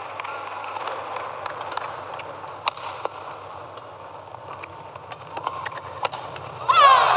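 Sharp clicks of rackets striking a shuttlecock and squeaks of shoes on the court mat during a badminton rally, over a steady hum of the hall. Near the end a loud, high-pitched squeal starts with a rising pitch and holds on.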